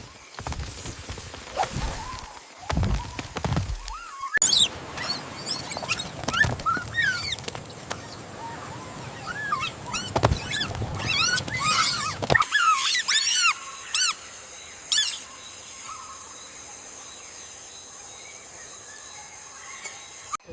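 Wild ambience with a few low thuds at first, then a busy run of quick high chirping calls from birds or small animals. Near the middle this gives way to a steady high whine.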